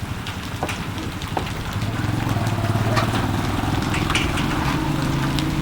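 Heavy rain falling, with many drops ticking sharply close by. A low steady motor hum joins about two seconds in.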